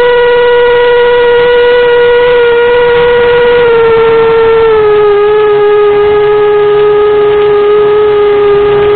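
Eachine Racer 250 quadcopter's brushless motors and propellers whining at a steady, high pitch, dipping slightly about five seconds in.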